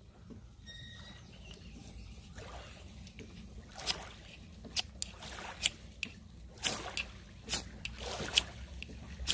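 A new ferrocerium (ferro) rod being struck, a run of sharp scrapes about one a second starting about four seconds in.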